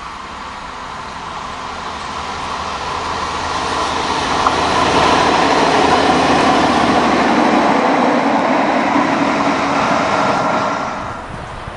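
Yellow rail maintenance vehicle and its flat wagons running past on the track: the sound of wheels on rail and machinery grows as it approaches, is loudest as it passes, and falls away about eleven seconds in. There is one sharp click about four and a half seconds in.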